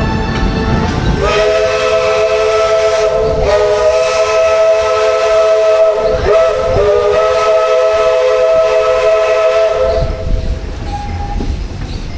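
Steam locomotive's chime whistle blowing a long, loud chord of several notes for about nine seconds, broken briefly twice. After it stops, the train's running rumble is left.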